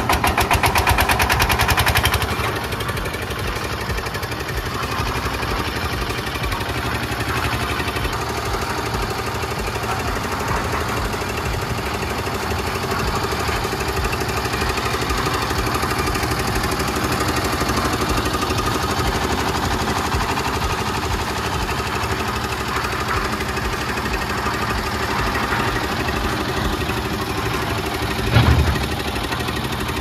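Kirloskar 12 HP diesel engine on a concrete mixer, just started and puffing smoke. It runs fast with a rapid, even chugging for about the first two seconds, then settles to a steady run. A single loud thump comes near the end.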